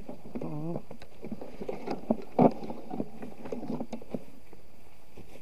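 Footsteps and the rustle and crackle of leaves and stems as people push through dense undergrowth, with a louder knock about two and a half seconds in. A brief wavering voice-like sound comes near the start, and a thin steady high whine runs underneath.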